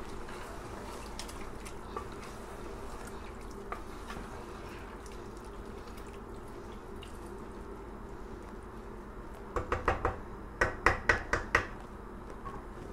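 Wooden spatula stirring wet beef masala in an aluminium pressure cooker, over a steady faint hum. Near the end comes a string of about eight sharp knocks of the spatula against the pot.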